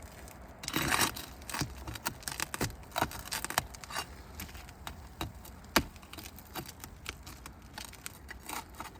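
Asphalt roof shingles being pried loose and roofing nails pulled: a tearing scrape about a second in, then scattered scrapes and clicks, with one sharp click a little past the middle.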